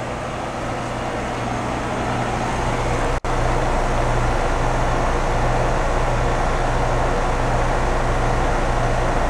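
Newly installed Rheem 3.5-ton air-conditioning condenser running: a steady low hum under the even rush of its fan. The sound drops out for an instant about three seconds in.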